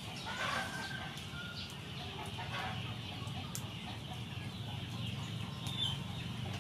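Chickens clucking a few times in short calls, over a steady low hum, with faint light clicks.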